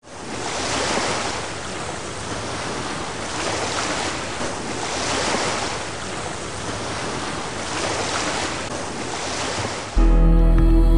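Ocean waves washing in and out, swelling and ebbing every two seconds or so. About ten seconds in the wash cuts off and soft, sustained music begins.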